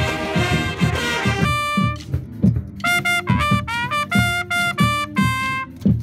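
Marching band brass playing, dense with the whole ensemble at first. About a second and a half in it thins to a few trumpets carrying a melody of held notes and quick runs over a steady low beat.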